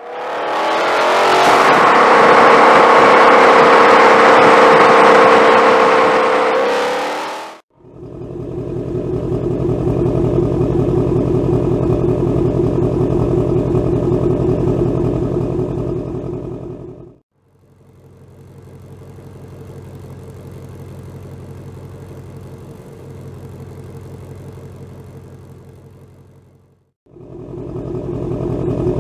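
Ford Mustang Shelby 5.2-litre V8 exhaust heard in several separate clips, each fading in and out. For about the first 8 seconds it is loud, with the engine running hard at a steady pitch. After that comes a car standing with the engine running, with a steady low pulse, a quieter stretch from about halfway, and a louder stretch again near the end.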